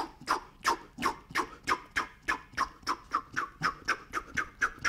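A boxer's sharp exhales through the mouth, one short hiss with each punch of a shadowboxing series, a breath out on every punch rather than one long breath. The puffs come faster, from about three to nearly five a second.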